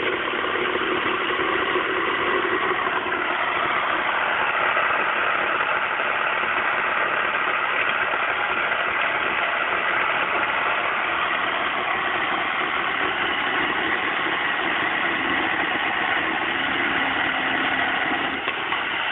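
Handheld electric jigsaw running steadily as it cuts across a new wooden board along a marked line. The motor keeps a constant whine throughout and only begins to slow right at the end.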